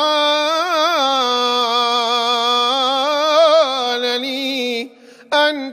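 A solo male voice chants a Coptic liturgical psalm. He holds one long melismatic note for nearly five seconds, its pitch wavering in ornaments. After a short break a new phrase begins near the end.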